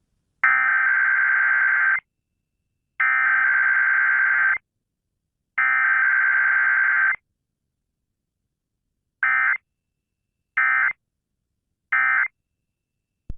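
Emergency Alert System SAME data tones. Three long buzzy digital header bursts, each about a second and a half, are followed by three short end-of-message bursts, marking the start and close of the Required Weekly Test.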